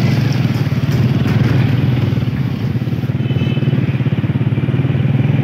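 Small motorcycle engine running steadily at low road speed, its rapid even firing pulses close by.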